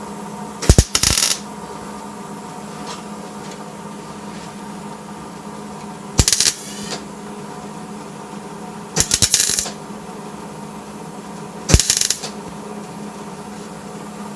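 Tack welding a body panel: four short crackling bursts of the welding arc, each about half a second, over a steady low hum.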